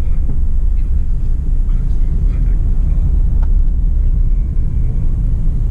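Steady low rumble of a Suzuki Alto Lapin kei car driving, heard inside the cabin: road and tyre noise with its small three-cylinder engine.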